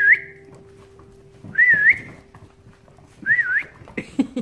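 A person whistling a short wavy call three times, each rising, dipping and rising again, about a second and a half apart, the way puppies are called.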